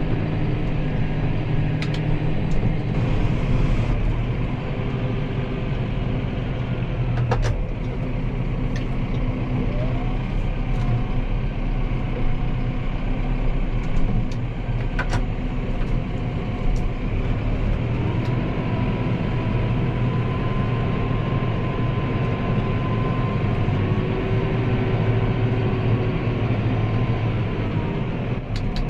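Massey Ferguson 5S.115 tractor engine running steadily under load while ploughing, with a few faint clicks.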